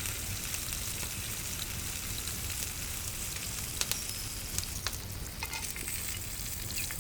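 Salmon fillets searing in butter in a hot pan: a steady sizzle with a few sharp pops around the middle.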